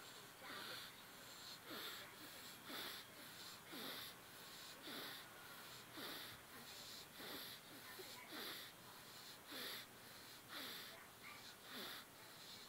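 A sleeping child snoring with fast, laboured, wheezy breaths, about one a second, faint and very regular.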